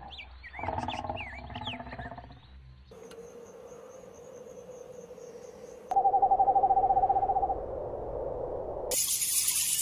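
An owl's rapid trilling call about six seconds in, lasting about a second and a half, after a few seconds of short high bird chirps.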